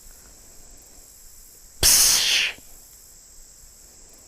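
One loud, breathy blowing snort about two seconds in, lasting under a second in two quick pulses, like a white-tailed deer's alarm blow. The same snort comes again about three seconds later.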